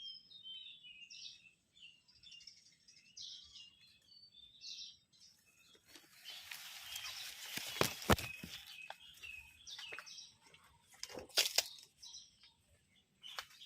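Small birds chirping in quick short calls. About six seconds in, a rustling starts, with a few sharp clicks near the middle and again near the end.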